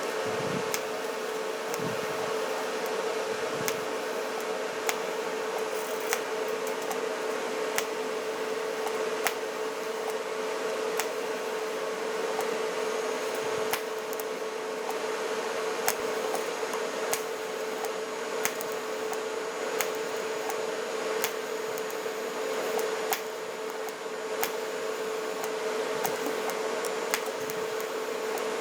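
Steady machine hum, with light, sharp metal taps about once a second from planishing welded-up trim holes in sheet steel.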